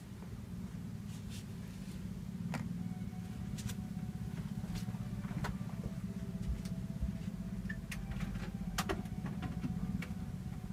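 Steady low hum of room noise, growing a little louder about two seconds in, with scattered light clicks and taps from someone moving about.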